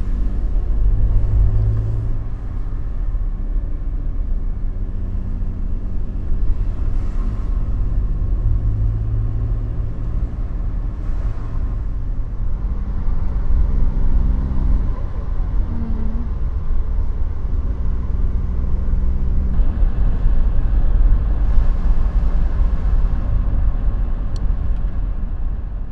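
A car driving along a road, heard from inside the cabin: a steady low engine rumble and tyre noise, the engine's pitch shifting a few times as the speed changes.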